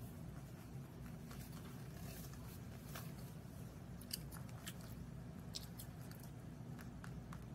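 Rabbit chewing and nibbling a fig, with irregular short, crisp crunches.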